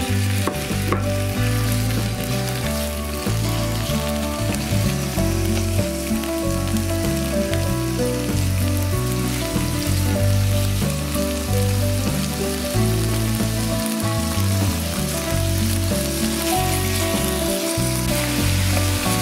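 Thin-sliced pork shoulder sizzling and frying in hot sesame oil in a frying pan, with the slices shifted and spread out with chopsticks. Background music with steady, changing notes runs underneath.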